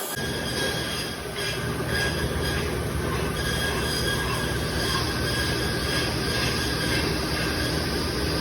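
Milling machine cutting metal: steady machining noise with a pulsing low rumble and thin, high-pitched metallic squealing tones held throughout.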